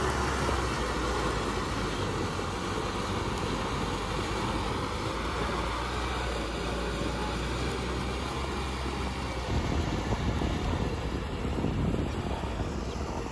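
Kubota M6040SU tractor's diesel engine running steadily under load, pulling a rotary tiller through the wet mud of a rice paddy.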